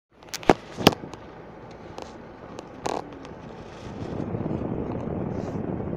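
Car driving down a snow-covered road, heard from inside the cabin: a steady rumble of road and tyre noise that grows louder about four seconds in. Two sharp knocks in the first second and a smaller one about three seconds in.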